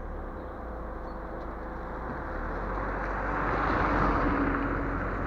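Wind rushing over an action camera's built-in microphone mounted on the roof of a moving car, with road and engine noise underneath; the rush grows louder from about two seconds in.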